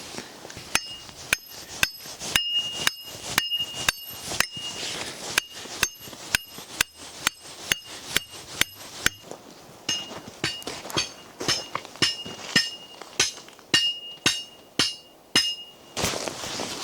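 Rapid series of sharp metal-on-metal strikes, about two a second, each with a short bright ring, in two runs with a brief pause about nine seconds in.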